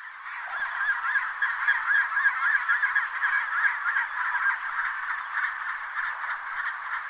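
Chinstrap penguin colony calling: a dense chorus of many birds calling at once, overlapping without pause.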